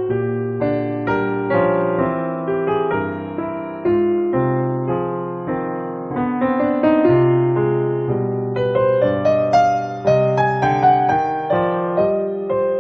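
Background music: a piano playing a gentle melody over chords, each note struck and left to fade.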